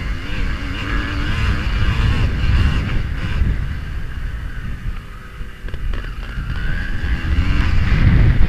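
A pre-1985 motocross bike's engine, heard from a helmet camera while racing on a dirt track, revving and easing off with the throttle, with heavy wind buffeting on the microphone. The engine eases off about five seconds in and then rises again toward the end.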